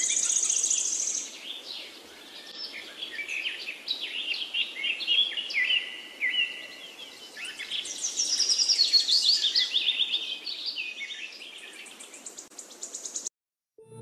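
Several birds chirping and singing, with many short varied calls and a high buzzy trill at the start and again near the end, over a faint background hiss. The birdsong cuts off abruptly just before the end.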